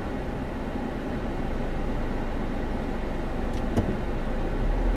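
Steady engine and road rumble of a car moving slowly, heard from inside the cabin, with one sharp knock about four seconds in and the low rumble swelling near the end.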